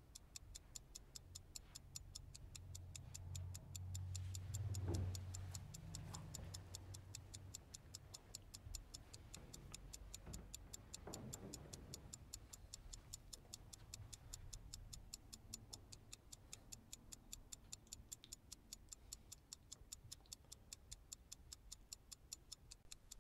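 Faint, fast, even ticking of a clock, several ticks a second. A low hum swells and fades in the first few seconds.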